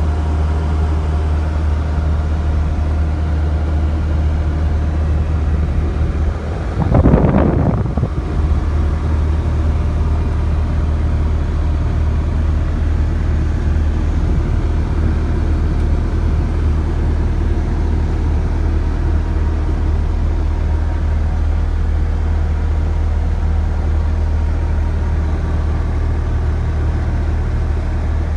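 Bobcat S650 skid steer's diesel engine running steadily with a deep hum, with a brief louder surge about seven seconds in.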